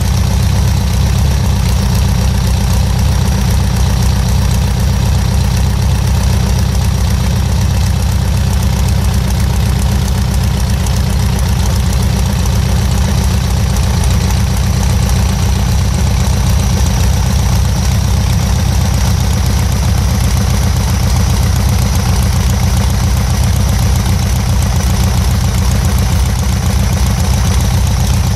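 Air-cooled Volkswagen-type flat-four engine idling steadily.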